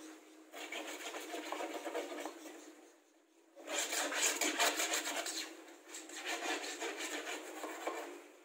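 A plywood panel being rubbed by hand, in three spells of quick repeated strokes with short breaks between.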